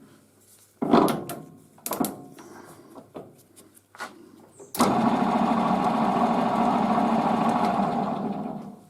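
Two knocks with a short ring, then a small metal-turning lathe starts about five seconds in, runs steadily for about four seconds and winds down near the end.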